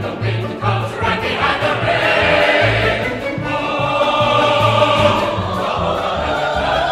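Background music: a choir singing long held notes over an orchestra, with a pulsing bass line.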